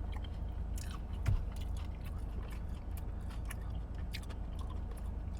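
Close-miked biting and chewing of bone-in chicken wings: small wet, crunchy clicks over a steady low hum, with a soft knock a little over a second in.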